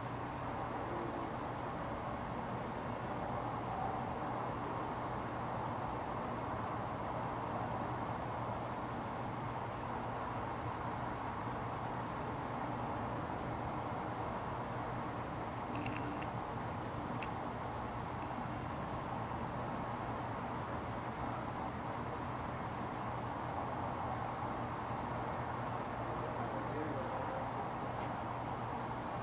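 Insects chirping steadily at one high pitch, over a low steady hum.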